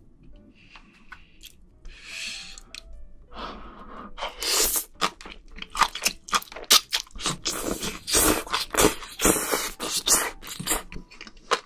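Close-miked eating sounds of a mouthful of noodles and seafood in spicy sauce: wet slurping and chewing. The sounds come thick and loud from about three and a half seconds in.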